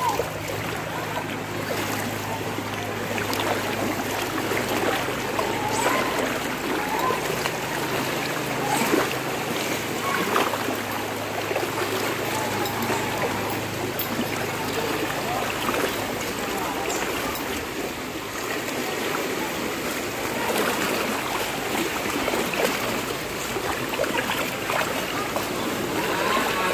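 Steady rush of fast-flowing floodwater through a street, with voices calling out now and then.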